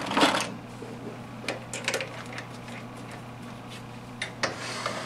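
Small metal lathe running with a steady low hum, with a few sharp clicks and knocks of tooling being handled as the lathe is set up to center drill the part.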